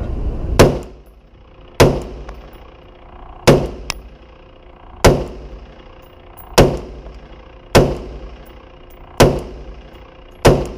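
Gunshots at an indoor range, fired one at a time at a steady pace: eight shots about a second and a half apart, each with a short echoing tail.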